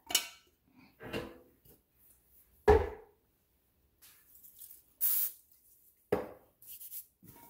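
Kitchen handling sounds from a stainless steel mixing bowl and a large mass of bread dough: a few separate knocks and thumps, the loudest about two and a half seconds in, with short rubbing, brushing noises in between.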